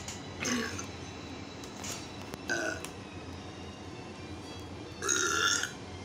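A few burps: two short ones in the first three seconds, then a longer, louder one about five seconds in.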